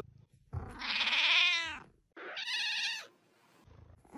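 Domestic cat meowing twice: a long call that rises and then falls in pitch, followed by a shorter, wavering one.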